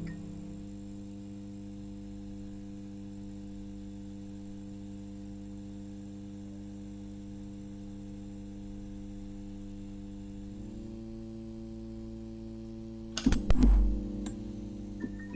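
A steady electric hum drone of several held low tones, the chord shifting slightly about eleven seconds in. About thirteen seconds in comes a loud, brief crackling burst with a deep boom.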